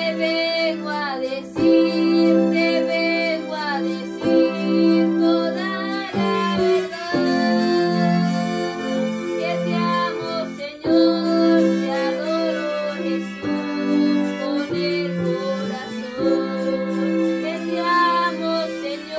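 A girl singing a worship song, accompanied by a Roland Juno-DS keyboard playing held chords.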